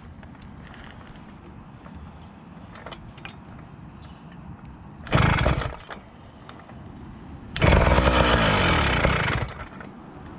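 Two-stroke motorized-bicycle engine cranked by its recoil pull start: a short pull about five seconds in, then a second, longer burst of about two seconds that cuts off near the end.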